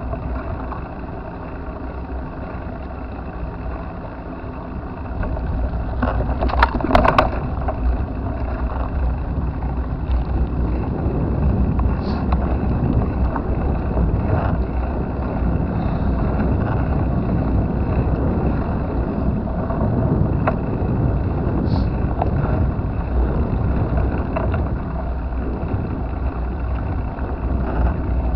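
Steady rumble of wind and road noise from a moving bike, growing louder about five seconds in as it picks up speed, with a brief rattling clatter soon after.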